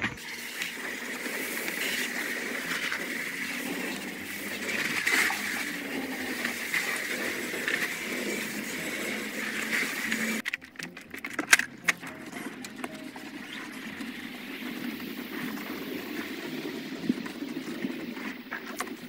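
Garden hose spraying water onto the trike's bodywork, a steady hiss and patter of spray. About halfway it breaks off with a few knocks, then carries on softer and lower.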